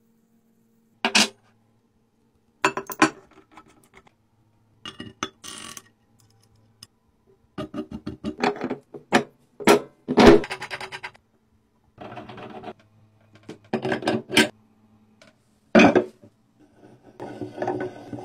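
A string of short metallic clinks, knocks and scrapes of hard objects being handled, with a few longer rattling stretches in between.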